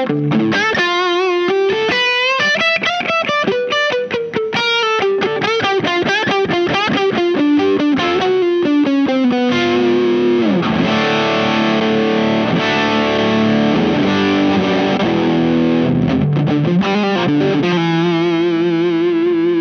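Electric guitar with humbuckers played through the overdrive (Tube Screamer-style) side of a Visual Sound Jekyll & Hyde V1 pedal, set to mid gain with the sharp switch on. It plays a single-note riff for about the first half, then strummed overdriven chords, ending on a held chord that rings on.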